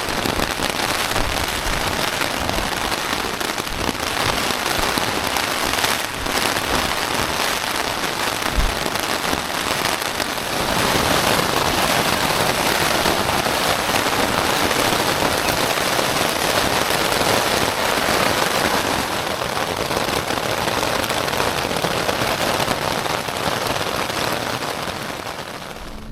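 Heavy rain falling on a Nordisk Oppland 2LW tent's fly sheet, a dense, steady patter that gets louder about ten seconds in.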